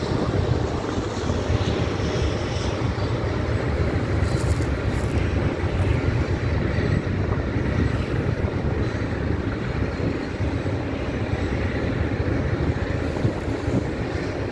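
BNSF freight train of covered hopper cars rolling across an overpass bridge: a steady low rumble of wheels on rail that holds level throughout.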